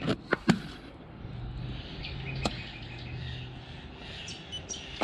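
Three sharp clicks in the first half second as the fridge's plus and minus control buttons are pressed, then a faint steady low hum with one more click, and birds chirping faintly near the end.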